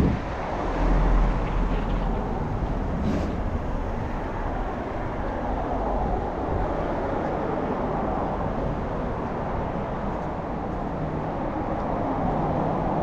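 Passing street traffic: a steady wash of car and road noise, with a stronger low rumble about a second in.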